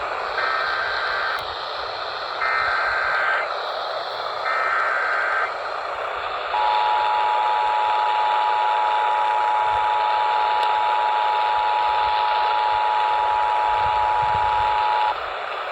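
Emergency Alert System activation: three short bursts of the warbling SAME data header, then the two-tone EAS attention signal held steady for about eight seconds before it cuts off. It is heard through a radio broadcast with steady hiss underneath.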